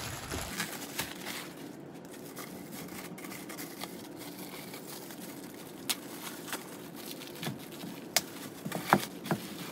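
Plastic packaging rustling and crinkling as a wrapped package is handled and opened, with a few sharp clicks and taps, the loudest near the end.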